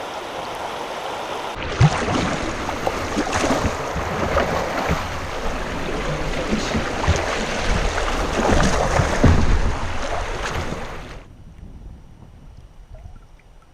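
Water rushing and splashing around a kayak on a shallow creek, with scattered low knocks. It starts abruptly about a second and a half in and cuts off suddenly about eleven seconds in.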